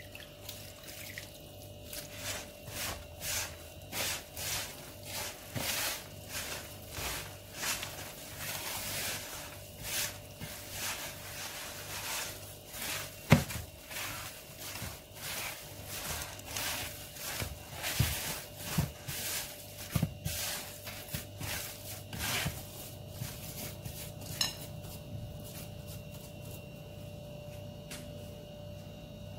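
Hands rubbing and squeezing moist semolina dough against a wooden bowl, a soft rhythmic rustle about twice a second, with one sharp knock about halfway through. The working stops a few seconds before the end.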